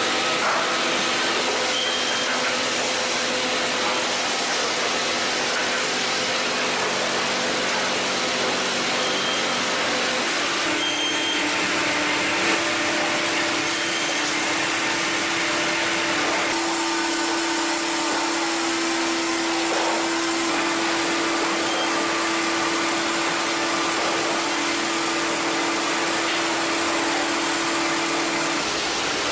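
Automated sawmill machinery running: a steady rushing noise with a constant hum under it, the hum changing abruptly about ten seconds in and again a few seconds later.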